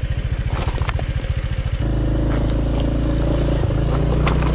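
Motor scooter engine pulsing at low revs. About two seconds in the throttle is opened and it runs at high, steady revs under load on a steep, rocky climb, with a few knocks and clatters.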